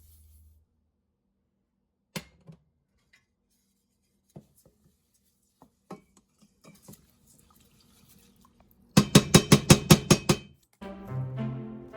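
Kitchen clatter: scattered light clicks and knocks, then a fast run of about a dozen sharp strokes, about seven a second, from a utensil working against dishes or a pot. Background music comes in near the end.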